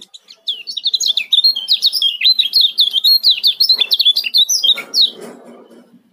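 Kecial kuning (a white-eye) giving a fast, tightly packed run of high chirps, its 'ciak' call, for about four and a half seconds before it stops around five seconds in. A soft, lower rustle follows near the end.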